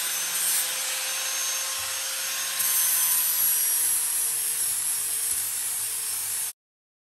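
Angle grinder with an abrasive disc deburring the worn edge ridge of a brake drum: a steady grinding hiss over the motor's whine, which drops slightly in pitch about halfway through. It cuts off suddenly near the end.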